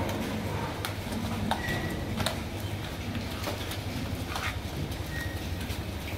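Dairy cows' hooves clopping irregularly on a concrete floor as the herd walks past, over a steady low hum.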